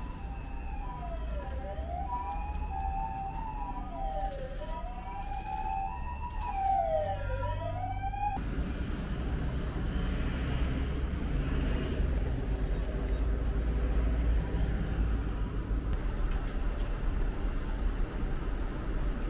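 Emergency-vehicle sirens: a wail rising and falling about every three seconds, overlaid with an alternating two-note tone. Both cut off abruptly about eight seconds in, leaving a steady, even background noise.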